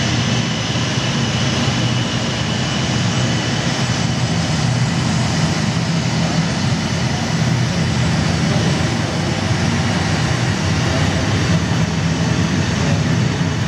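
Steady jet-engine sound effect played through the loudspeakers of a model airport as a model airliner moves down the runway, with the hall's background hum beneath it.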